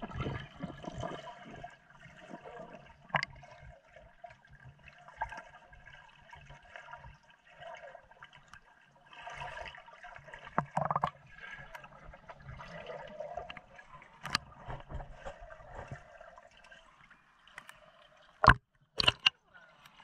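Swimming-pool water heard underwater through a GoPro: a muffled, steady gurgling and bubbling wash with scattered soft ticks, and a few sharp knocks near the end.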